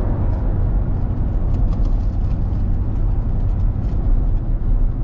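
Steady low rumble of road and engine noise inside a car cabin while driving at motorway speed.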